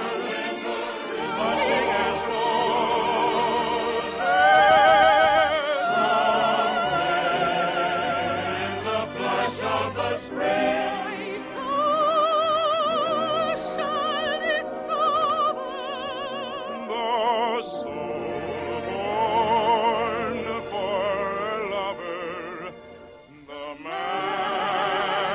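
Operetta singing with wide vibrato over an orchestra, heard through the narrow, dull bandwidth of an old radio broadcast recording. The music dips briefly near the end, then swells again.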